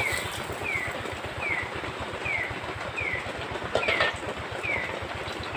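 Metal spatula clinking and scraping against a wok, sharply at the start and twice about four seconds in, over a steady hiss. Through it runs a short, high, falling chirp from a night-calling animal, repeated evenly about every three-quarters of a second.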